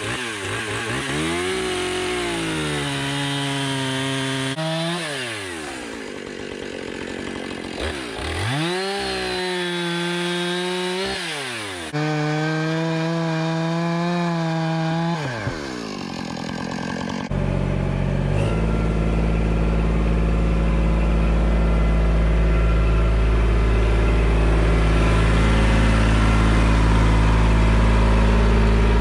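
Chainsaw engine revved up and down over and over, its pitch rising and falling with each throttle pull. About two-thirds of the way through it changes abruptly to a steady, louder, lower-pitched engine drone.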